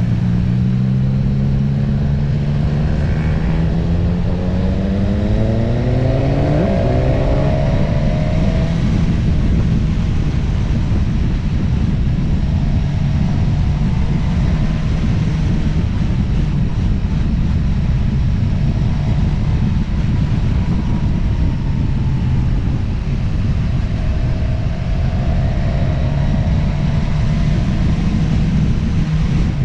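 Vehicle engine rising in pitch as it accelerates, with a sudden drop like a gear change about seven seconds in. It then runs at a steady speed under heavy wind and road noise.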